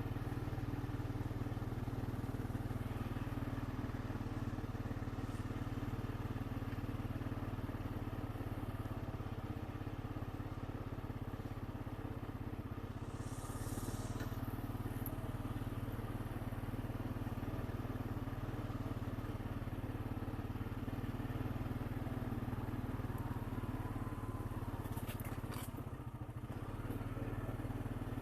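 Honda Rancher 420 ATV's single-cylinder four-stroke engine running at a steady low speed as the quad is ridden slowly, with a brief hiss about halfway through and a few faint clicks near the end.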